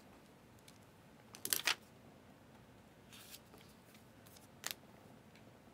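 Trading cards being handled: a few short scrapes and clicks as one card is slid off another, the loudest cluster about a second and a half in, a softer scrape around three seconds and one sharp click near five seconds.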